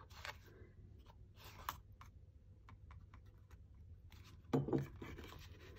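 Faint handling of cardstock while liquid glue is squeezed onto paper flaps: scattered light rustles and small clicks.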